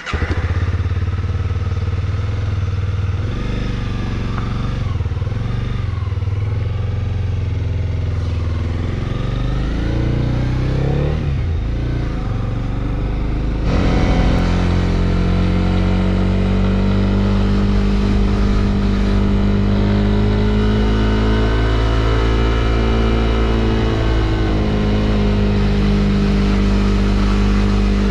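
Motorcycle engine running under way, its pitch rising and falling over the first half. About halfway through the sound changes abruptly to a steady, even drone.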